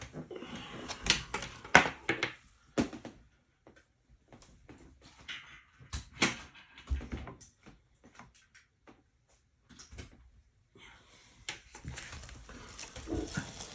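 Handling noises: a string of irregular plastic clicks and knocks with brief rustles as the voltage converter, its plug adapter and packaging are opened and fitted together.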